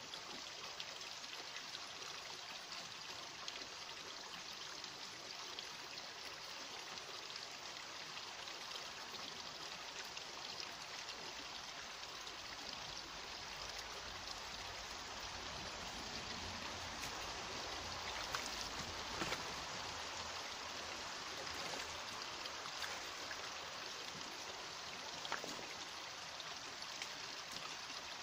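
Shallow rocky stream running steadily, with a few faint sharp splashes from someone wading, in the middle and near the end.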